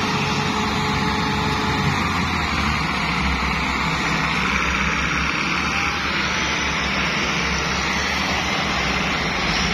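Two diesel tractors, a Massey Ferguson 385 and a 640 towing it on a chain, running hard under heavy load as they try to pull a sugarcane-laden trolley that is stuck fast. A steady, loud engine drone.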